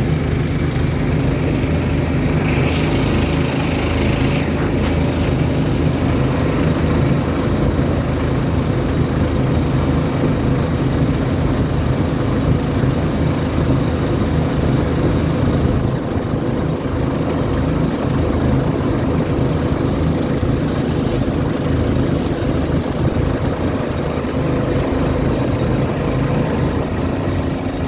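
Boat engine running steadily, heard from on board, with a low, even drone. A high hiss over it drops away about halfway through.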